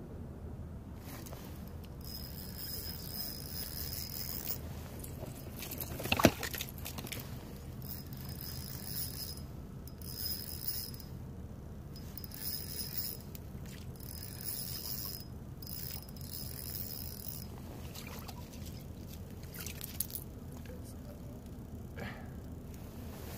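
Spinning reel on a short ice-fishing rod cranked in several bursts, each a high whir with a steady whine, as a hooked white bass is reeled up. A single sharp knock about six seconds in.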